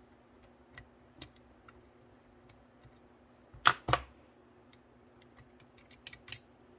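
Light clicks and taps of small metal and plastic parts being handled while a screw is taken out of an HO-scale model steam locomotive, with two louder knocks in quick succession a little past halfway.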